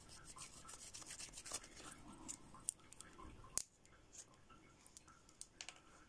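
Lint-free wipe rubbed over a gel-coated plastic nail tip to wipe off the sticky layer: faint scratchy rubbing, then a sharp click about three and a half seconds in, and a few small ticks near the end.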